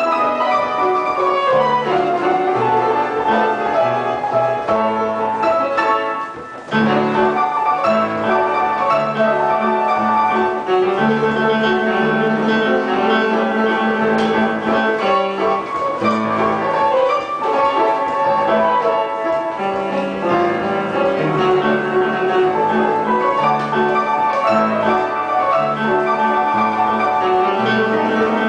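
Angelus pianola, a pedal-pumped player piano, playing a waltz from a paper music roll, dense with many notes, with a brief break about six and a half seconds in.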